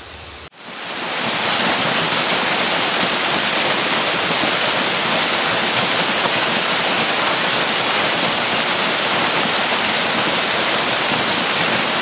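Waterfall rushing: water pouring over a weir and rocky falls, a dense steady roar of falling water that fades in about half a second in.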